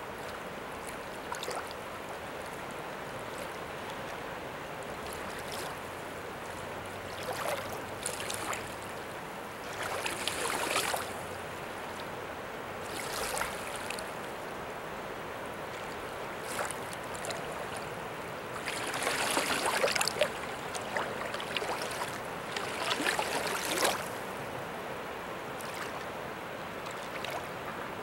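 River floodwater flowing steadily, with several louder bursts of rushing water; the biggest comes about two-thirds of the way through.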